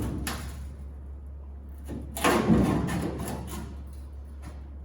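Sheet-metal body panel being levered straight with a homemade slotted bar: a short scrape or clunk at the start, then a longer creaking, scraping push about two seconds in, over a steady low hum.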